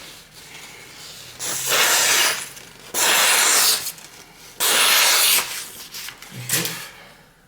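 Three scraping strokes of a steel kitchen knife blade, each lasting just under a second and evenly rasping.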